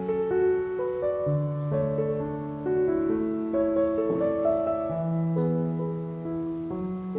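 Soft background piano music: a slow melody over held bass notes that change every second or two.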